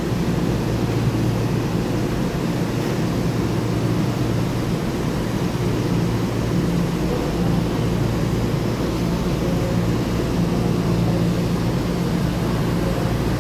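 Steady low hum of an EMU3000 electric multiple unit standing at the platform, its onboard equipment running.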